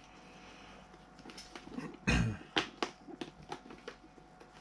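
Hands working the padded liner and cheek pads into a carbon-fibre motorcycle helmet shell: fabric rustling, then a loud short thump about two seconds in, followed by several small plastic clicks and taps.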